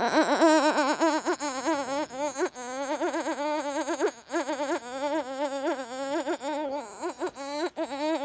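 A young girl's voice held in a long warbling note whose pitch wobbles rapidly up and down, broken by a few short pauses.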